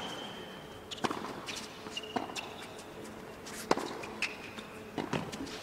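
Tennis rally on a hard court: sharp racket-on-ball strikes and ball bounces a second or two apart, with short high squeaks of shoes sliding on the court between shots.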